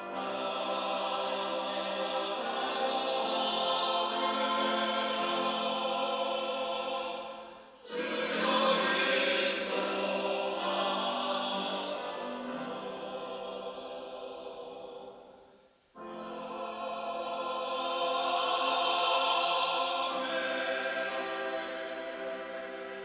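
Church choir singing an anthem in long, sustained phrases. It breaks off briefly twice, about a third and about two-thirds of the way through, before the next phrase comes in.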